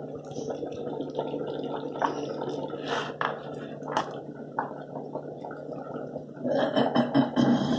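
Spiced minced mutton squelching wetly as a hand squeezes and kneads it in a plastic bowl, shaping meatballs. A few sharp clicks come through over a steady low hum. The sound grows louder near the end and cuts off suddenly.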